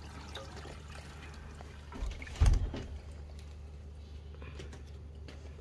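Aquarium filter water bubbling and trickling in a goldfish tank over a steady low hum. A single dull knock comes about halfway through.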